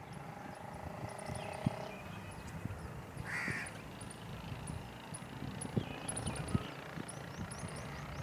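Birds calling: rapid short high chirps repeat throughout, with a steady lower tone in the first two seconds and one harsh call about three seconds in.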